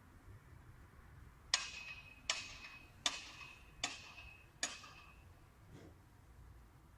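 Five sharp strikes, evenly spaced a little under a second apart, each ringing on briefly with a high tone.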